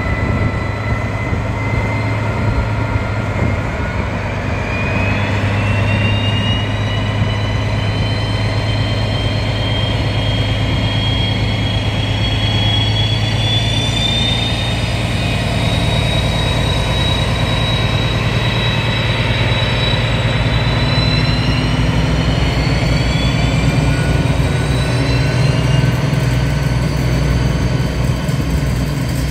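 Two DB class 218 diesel-hydraulic locomotives working together, pulling away with a train: a steady low engine drone under a high whine that rises in pitch over the first half, then holds as the coaches roll past.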